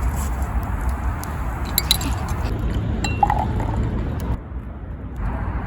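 Light glass clinks, a cluster about two seconds in and another near three seconds, over a steady low rumble of road traffic.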